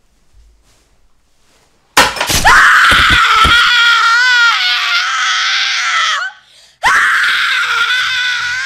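Shrill human screaming that bursts in about two seconds in with a few knocks and a clatter. The scream wavers in pitch for about four seconds, breaks off, and a second scream follows and runs on.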